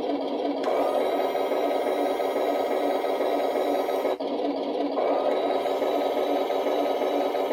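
Remote-control M3 Grant/Lee model tank's built-in engine sound effect running steadily through its small speaker, a dense mechanical buzz that drops out for a moment about four seconds in.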